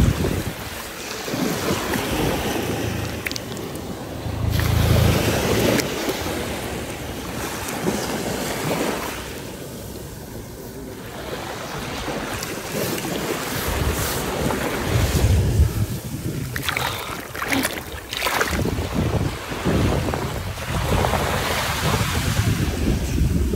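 Small sea waves washing in and out over wet beach sand, swelling and fading, with gusts of wind buffeting the microphone.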